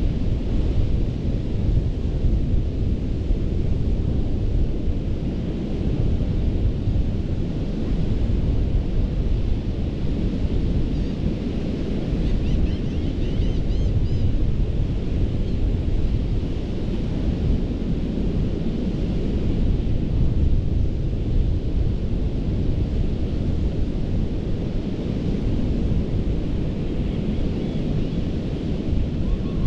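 Ocean surf on a sandy beach: a steady, unbroken wash of waves, with wind rumbling on the microphone.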